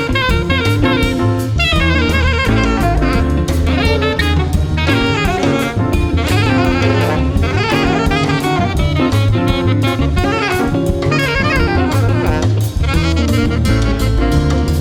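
A live jazz ensemble playing, with a saxophone out front in fast melodic runs over a drum kit keeping a steady beat, bass and piano.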